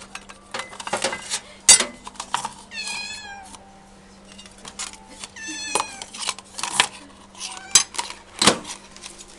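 Cats meowing several times, long wavering calls, mixed with sharp knocks and clatter of paper cups and a plate being handled in a microwave; the loudest knock falls near the end.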